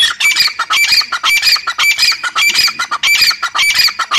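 Grey francolin calling loudly: a sudden start, then a fast, rhythmic run of high repeated call phrases, about two a second.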